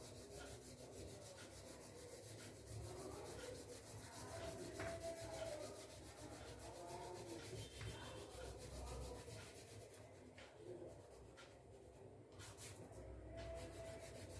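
Faint, irregular scratchy rubbing of an oil pastel stick being stroked back and forth across paper to colour in an area.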